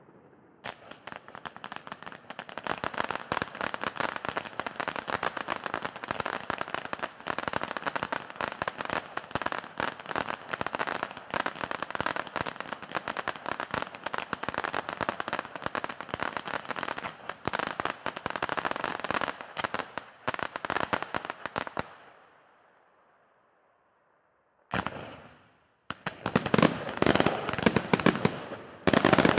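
Fireworks going off in a long, fast string of sharp bangs that crackle without a break for about twenty seconds and then stop. After a short pause comes a single bang that fades away, then another rapid volley near the end.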